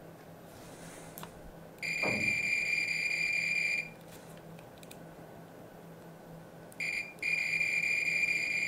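An electronic piezo beeper sounds a steady high-pitched tone for about two seconds, then a brief beep and another long one near the end, over a faint steady low hum.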